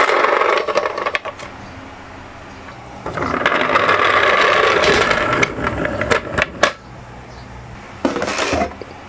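Toy minicars rolling down a slope, their wheels rattling and clicking: one run at the start, a longer one from about three to five and a half seconds in, and a short one near the end, with a few sharp clicks in between.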